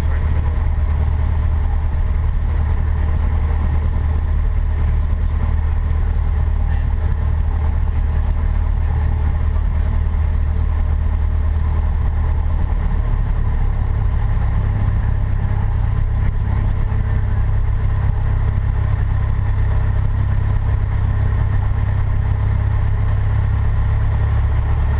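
Cessna 152's four-cylinder Lycoming O-235 piston engine running steadily in the cockpit, its low drone rising a little in pitch about halfway through.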